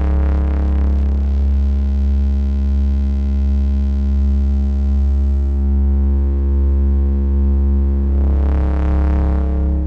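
Steady low analog synthesizer drone played through the Behringer 121 Dual VCF filter, with the cutoff being swept. The tone darkens a second or so in, and opens up brighter again near the end.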